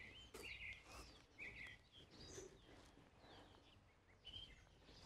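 Near silence, with faint small birds chirping now and then in the background.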